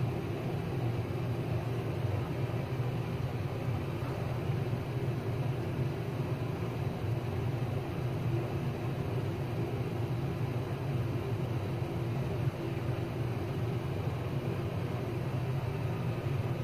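A steady low mechanical hum with hiss, unchanging, with no distinct knocks or clicks.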